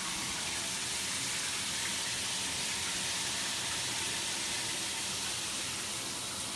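Water running steadily from a bathtub tap, an even hiss.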